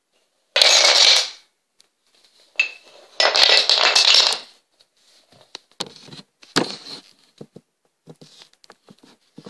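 Kapla wooden planks clattering as a tower is knocked down: two loud bursts of clatter, about half a second in and about three seconds in, then single planks clicking as they drop and settle.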